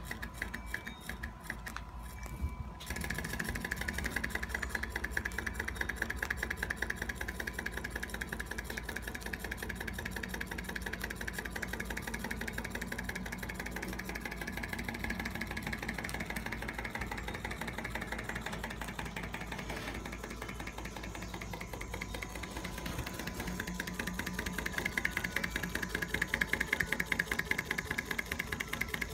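Model Rider-Ericsson hot air engine, a 1/10-scale PM Research kit, running steadily with a fast, even mechanical clatter from its pistons and beam linkage. The clatter grows louder about three seconds in and again near the end.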